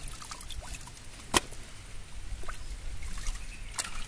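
Water splashing and dripping as whole fish are lifted out of a steel bowl of water and laid on a wet banana leaf, with scattered small taps and one sharp, louder knock about a second and a half in.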